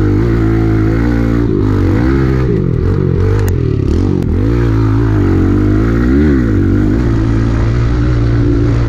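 Kawasaki KLX110 pit bike's small single-cylinder four-stroke engine revving up and down as it is ridden along a slippery muddy trail, its pitch rising and falling over and over with throttle changes. There are a couple of sharp clicks around the middle.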